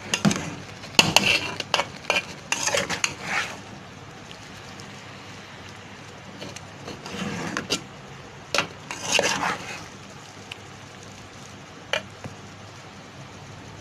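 Slotted metal spoon scraping and clinking against a metal cooking pot while rice is stirred into a thick masala. Two bouts of stirring, at the start and again around the middle, with a few single clinks in between.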